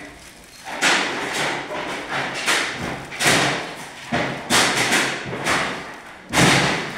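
Handling noise from a photocell unit being worked in the hands close to the microphone: about eight sharp thuds and rustles, each dying away quickly.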